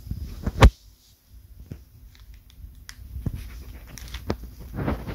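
Irregular sharp clicks and knocks over a low rumble. The loudest knock comes under a second in, and several lighter ones follow.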